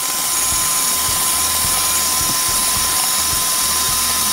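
Electric stand mixer running with its wire whisk beating egg whites in a stainless steel bowl: a steady motor whine, with the whisk whirring through the foam.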